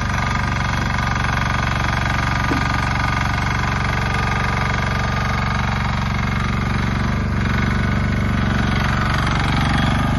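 Koop diesel engine of a Rhinoceros XN 800 tracked mini dumper running steadily while the hydraulic high-tip skip is lowered. The machine then moves off on its tracks, the engine getting a little louder near the end.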